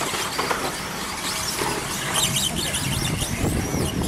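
Pack of radio-controlled short-course trucks racing, their motors giving high whines that rise and fall in pitch over a steady noise of tyres on the track.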